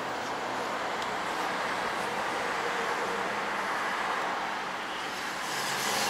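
Steady road and wind noise inside a moving car's cabin, a little louder near the end.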